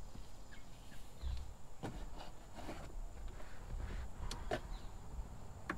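Bungee cords and sunshade fabric being handled and hooked around a Jeep's roll bar: scattered light clicks and knocks with some rustling, the sharpest click near the end.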